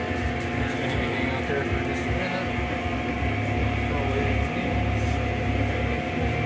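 Background music playing in the room over a steady low hum.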